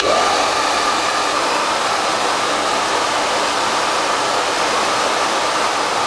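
Elchim 3900 professional hair dryer switched on at its highest setting: a loud, steady rush of air with a motor whine that climbs briefly as it spins up, then holds. It measures up to 90 decibels.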